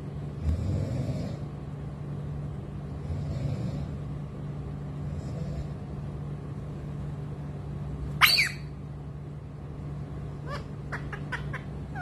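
Pet parakeet giving one sharp screech about eight seconds in, then a quick run of short chirps, over a steady low hum.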